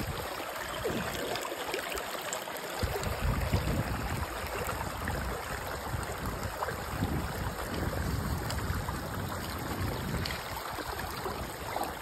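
Shallow, clear stream running over rocks, a steady rush of water with irregular low rumbles beneath it.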